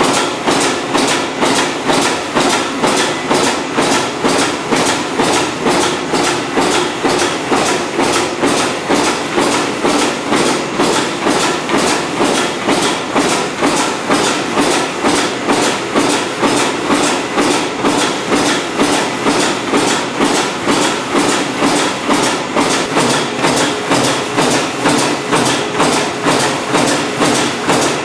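Aluminium foil lid making machine running, with a steady rhythmic knocking of about two strokes a second as it cycles.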